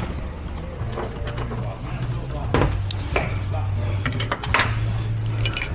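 Metal parts of an 8L90 automatic transmission clinking and knocking as they are handled during teardown, several separate clicks over a steady low hum.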